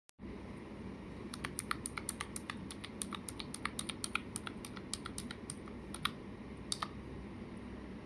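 Round typewriter-style keys of a MOFii Biscuit wireless numeric keypad being pressed one after another: a quick, irregular run of clicks that starts about a second in and stops near seven seconds, over steady low background noise.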